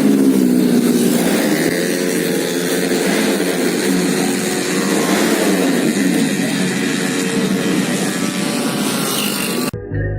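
Racing-tuned automatic scooter engine revving, its pitch rising and falling repeatedly. It cuts off abruptly just before the end.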